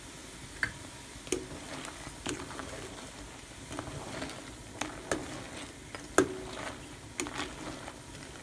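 A pot of crayfish at a rolling boil, giving a steady bubbling hiss, while a ladle stirs them. The ladle knocks and clinks against the pot and the shells about ten times at irregular intervals, loudest about six seconds in.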